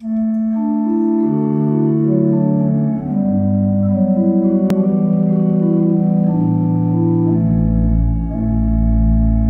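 Instrumental intro of a backing track: sustained, organ-like keyboard chords that change every second or so, joined by a deep bass about three-quarters of the way through. A brief click sounds near the middle.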